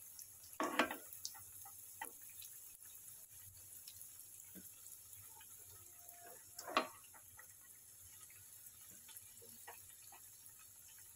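Bread triangles shallow-frying in hot oil: a faint sizzle with many small crackles. A steel slotted spoon knocks against the pan twice, about a second in and again near seven seconds.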